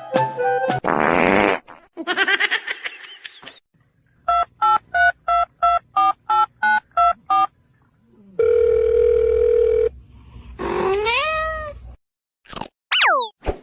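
A string of electronic phone-like sounds: about ten short beeps in a row, then a steady tone like a dial tone lasting about a second and a half. Near the end a cat meows, rising and falling in pitch, followed by a quick falling whistle.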